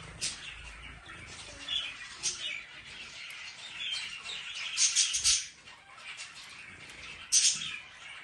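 Zebra finch singing: a run of short, high chirping notes, with louder quick clusters of notes about five seconds in and again near the end.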